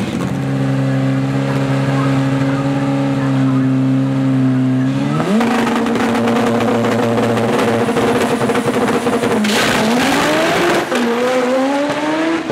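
Honda Civic front-wheel-drive drag car's engine held at a steady high rpm, stepping up sharply about five seconds in, then dropping and climbing again twice near the end, with tyre squeal from the spinning front tyres: a burnout.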